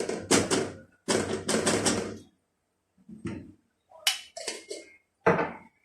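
A spoon scraping and knocking against a pot and jar in a few separate bursts, as tomato paste is spooned in and stirred.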